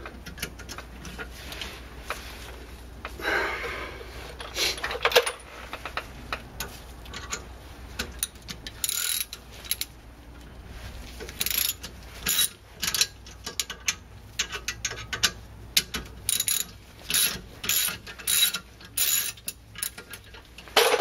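Ratchet wrench with a hex-bit socket clicking in short irregular runs as it backs bolts out of a car's steering knuckle; the runs come closer together in the second half.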